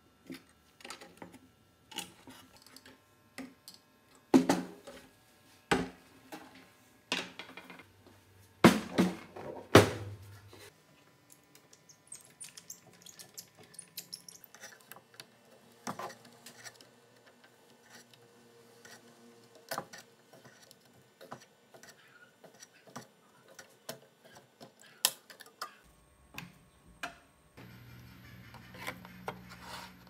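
Metal clinks, knocks and scrapes as pliers and refrigerator parts (compressor mounting plate, evaporator tubing, sheet-metal cabinet) are handled on a workbench. There are a few sharp knocks in the first ten seconds, then lighter scattered clicks and rubbing.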